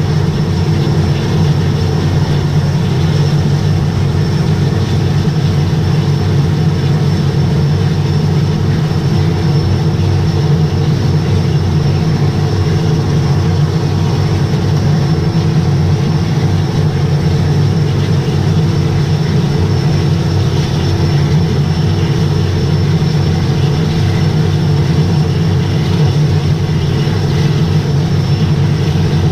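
Air Tractor 402B's Pratt & Whitney PT6A turboprop engine and propeller running steadily at low power, heard from inside the cockpit, a constant hum with a steady tone.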